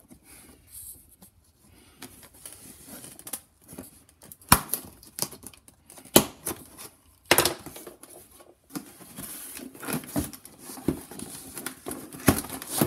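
A cardboard box being cut open and handled: a blade scraping and slitting along the cardboard, rustling, with several sharp knocks along the way.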